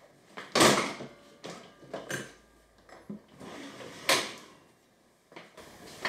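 Knocks and clunks of a hinged wooden router-table box being swung down from its folded upright position and settled onto the table saw. There is a loud knock about half a second in, a few lighter knocks, a brief rubbing sound, and another sharp knock about four seconds in.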